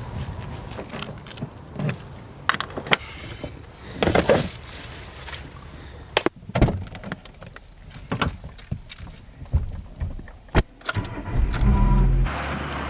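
A string of sharp clicks, knocks and handling noises, the kind of sounds made around a car, then about eleven seconds in a steady low hum begins, like a vehicle engine running.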